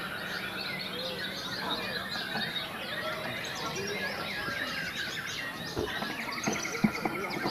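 Many caged white-rumped shamas (murai batu) singing at once in a contest hall: a dense tangle of overlapping whistles, chirps and glides, with a rapid trill near the end. A single sharp knock sounds near the end.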